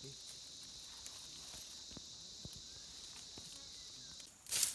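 Steady high-pitched drone of insects in the forest, with faint scattered snaps and footsteps in the undergrowth. The drone stops about four seconds in, and then comes a brief loud rustle of leaves and branches being pushed aside.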